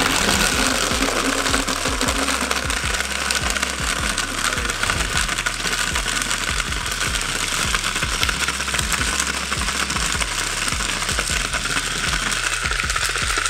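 BlendJet One cordless portable blender running with its jar standing on the table, blending fruit, ice and almond milk: a steady motor whir that is pretty loud on the table.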